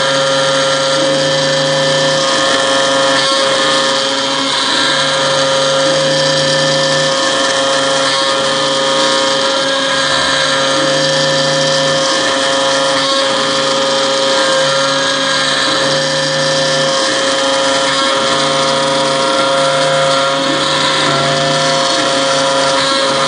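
MillRight CNC M3 router milling aluminum: the spindle runs with a steady high whine while the end mill cuts around the part. A lower hum switches on and off every second or two as the cut goes on.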